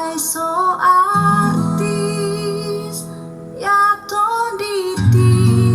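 Recorded song playing through a PS TT-12M top speaker and PS SUB905s subwoofer: a woman singing over guitar, with heavy bass coming in near the end.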